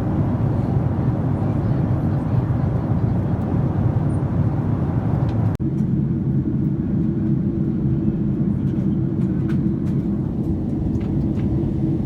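Steady cabin noise of a Boeing 767-300ER jet airliner heard from a window seat: the constant hum of the engines and rushing air. It breaks off for an instant about halfway through at an edit, then carries on the same way.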